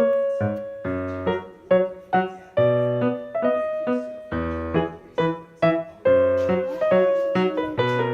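Background piano music: a run of quick notes that each die away, over low bass notes.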